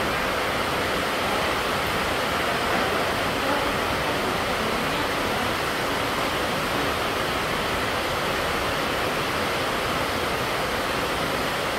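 Steady rushing noise of moving air from an electric fan, even and unbroken.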